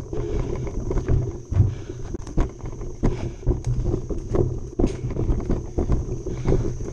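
Mountain bike ridden fast over rough trail: the bike rattles and clatters with frequent irregular knocks as the tyres hit bumps, over a low rumble.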